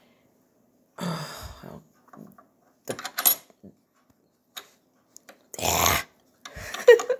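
Small metal clicks and rattles of a Kenmore sewing machine's hook-race parts being fitted back in by hand, with scattered rubbing handling noise and a louder half-second burst of noise a little before six seconds in.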